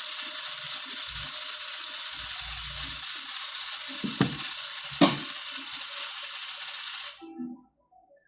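A loud, steady hiss that cuts off suddenly near the end, with two sharp clicks about three-quarters of a second apart in the middle.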